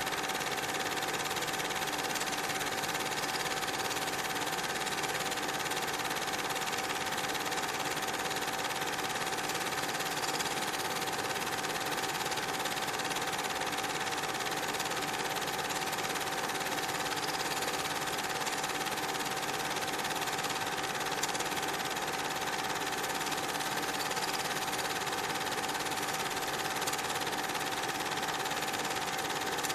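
A small machine running steadily: an even mechanical whirr with a constant hum that does not change through the whole stretch.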